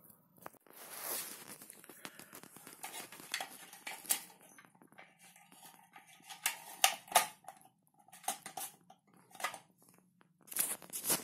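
Irregular light clicks, taps and rustles of handling: a mains plug and its cord being handled and pushed into a plastic power strip, with a quick run of clicks near the end.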